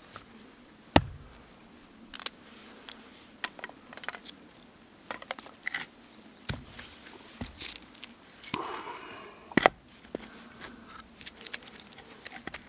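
Irregular clicks, knocks and crinkling of things being handled by hand, with two sharp knocks, about a second in and just before ten seconds in.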